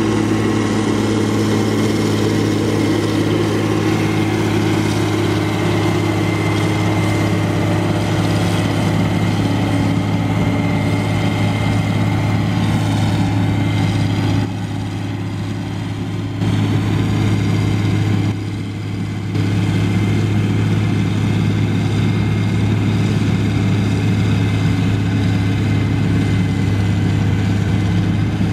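John Deere 770B motor grader's diesel engine running steadily as the grader works the soil, a deep even hum that drops in level briefly twice around the middle.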